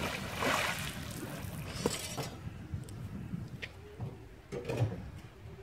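Splash of a fishing magnet landing in canal water after a throw: the spray falls back onto the surface for about two seconds, then it goes quieter, with a few faint clicks as the rope settles.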